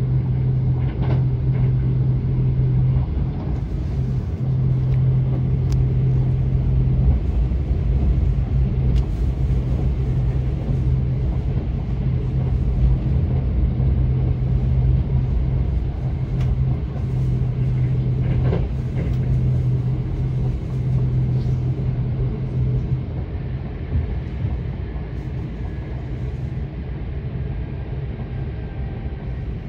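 Running noise heard inside a Kintetsu UrbanLiner 21000-series electric limited express train in motion: a steady low rumble with a strong low hum. The hum fades out about three-quarters of the way through and the noise eases slightly.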